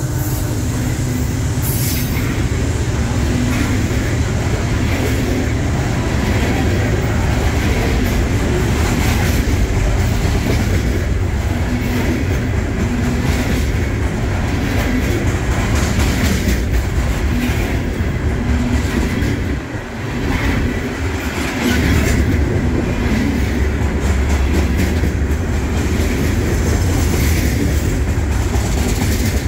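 Loaded coal cars of a freight train rolling past close by: a steady rumble of steel wheels on rail with repeated clacks, dipping briefly about twenty seconds in.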